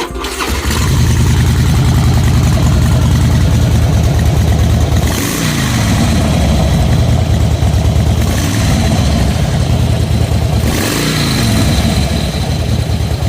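2005 Harley-Davidson Fat Boy's V-twin engine running with a loud knocking, its speed dipping and coming back up twice. The owner traced the knock, which sounds as if it comes from the top end, to a loose compensator bolt rather than the rocker arms.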